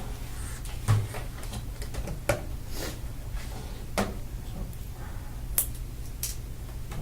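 Hands handling laptop screen parts and cables, making a handful of scattered sharp plastic clicks and taps. A steady low hum runs underneath.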